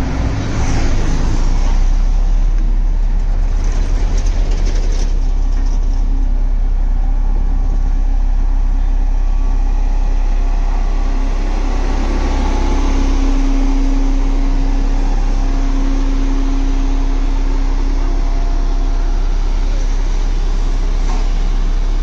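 LiuGong single-drum road roller's diesel engine running as the machine drives over a dirt roadbed, a loud, deep, steady drone.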